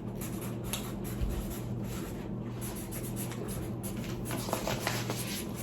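Pen scratching on paper as answers are written down, with faint rustling over a steady low electrical hum.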